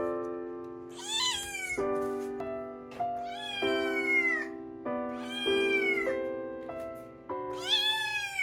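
A cat meowing four times, each high meow rising then falling, over background music of held chords.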